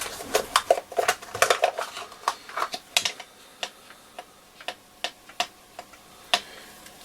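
Light clicks and taps of small screws and a screwdriver being handled on a workbench, with a little tub for the screws. The clicks come thick and fast for the first few seconds, then one about every half second, with a sharper click near the end.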